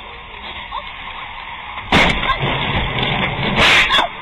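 Car crash heard from inside the car through a dashcam microphone: a sudden loud collision impact about two seconds in, continuing noise, then a second loud impact near the end.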